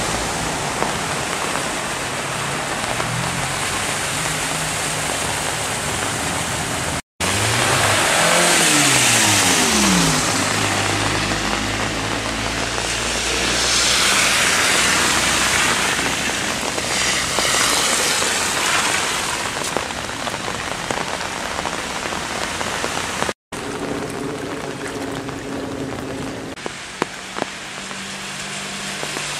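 Steady rush of floodwater and rain on a flooded street, with cars driving through the water. About a third of the way in, a passing car's engine note rises and falls.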